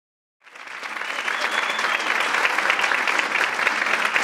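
Audience applauding, the clapping fading in about half a second in and then holding steady.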